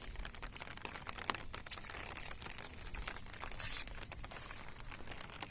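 Irregular rustling and crackling with scattered sharp clicks.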